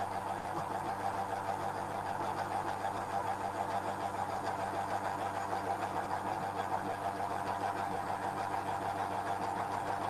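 Steady whirring hum of a gyroscope apparatus's motor-driven rotor disc spinning at constant speed.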